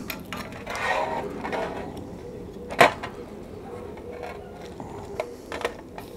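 Cookware and utensils handled while boiled homemade sausages are taken out of the pot. A single sharp knock comes about three seconds in, and a couple of soft taps near the end.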